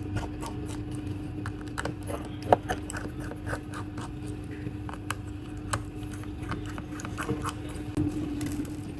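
Light, irregular clicks, taps and scrapes of small repair tools working on an opened smartphone, over a steady low hum.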